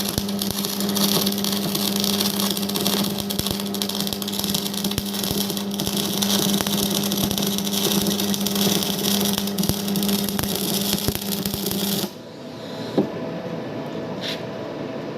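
Electric arc welding: a steady crackling hiss with a constant hum, dotted with small pops. It stops suddenly about twelve seconds in as the arc is broken, leaving quieter background noise with a sharp knock soon after.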